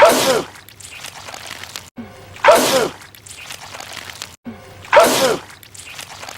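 A man sneezing loudly, the same sneeze looped three times about two and a half seconds apart. Each starts sharply and its pitch falls, with a short breath in just before it.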